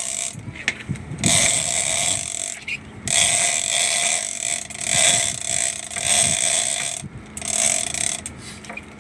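Large conventional fishing reel whirring as its spool turns, in several spells that stop and start: one of about a second, then a long run of about four seconds, then a short one near the end.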